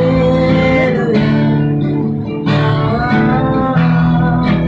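Acoustic guitar being strummed, with a man's voice singing along.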